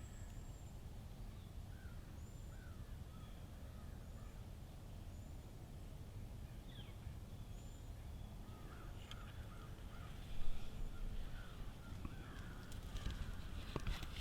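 Faint birds calling in the woods: scattered short, high chirps and lower call notes over a low, steady rumble, with a few soft clicks and rustles near the end.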